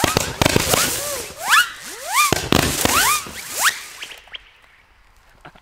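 Xplode Psycho Billy firework battery firing its last shots: sharp bangs mixed with short whistles that rise and fall in pitch. They stop about four seconds in and the sound dies away.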